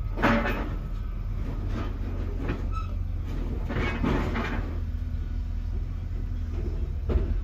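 Steady low diesel-engine rumble with scrap steel clanking and ringing three times: about a third of a second in, around four seconds in and near the end.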